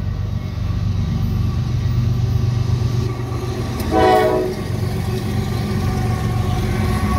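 CSX freight train's diesel locomotives passing close by, their engines making a heavy steady rumble. About four seconds in, the lead locomotive's horn gives one short blast.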